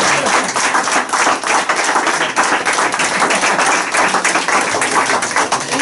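A small crowd applauding, many hands clapping at once.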